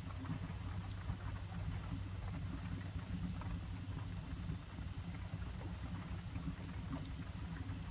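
Steady rain heard from inside a van, with logs crackling in an open wood-burning stove: scattered sharp snaps over the even hiss of the rain.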